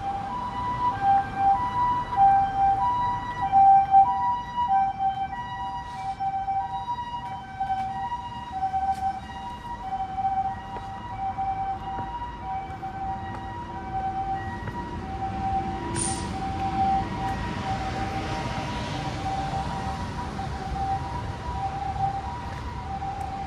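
Two-note emergency vehicle siren alternating steadily between a high and a low tone, about one high-low cycle a second. It is louder over the first few seconds, then fainter. About sixteen seconds in, a rushing noise joins it for several seconds.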